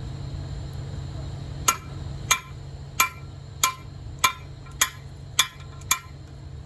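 Eight sharp metal-on-metal strikes, like a hammer on steel, evenly spaced about every half second starting near two seconds in, each ringing briefly. A steady low machine engine hum runs underneath.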